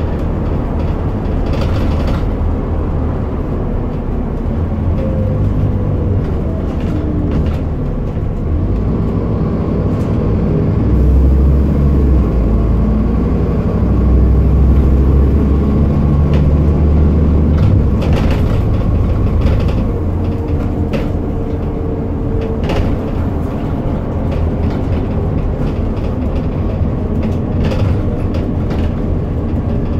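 Interior sound of a Scania N230UD double-decker bus: its diesel engine running low and steady in traffic, louder for several seconds mid-way as it pulls, with scattered clicks and rattles from the bodywork and windows.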